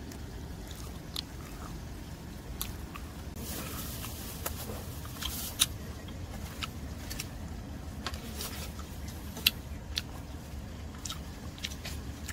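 Close-up eating sounds: biting and chewing, with many sharp crunchy clicks at irregular intervals, over a steady low rumble.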